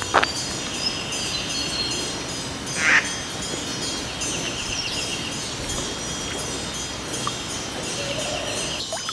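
Outdoor rural ambience: birds calling over a steady hiss, with a high, pulsing trill that comes and goes. Two short louder sounds stand out, one at the very start and one about three seconds in.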